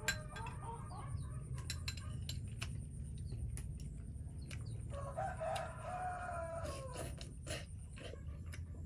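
A rooster crowing once, a long call starting about five seconds in that falls away at the end, after a run of short chicken clucks near the start. Light clicks of a metal spoon against a bowl are scattered throughout, over a steady low hum.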